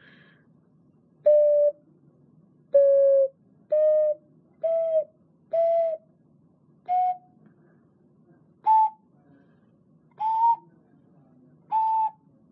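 12-hole alto C dolomite ceramic ocarina played as nine separate held notes, mostly stepping up in pitch like a slow scale.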